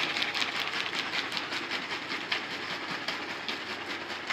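Liquid sloshing in a capped plastic water bottle of tea that is being shaken hard, in a fast, even rhythm of several shakes a second. It gets gradually quieter.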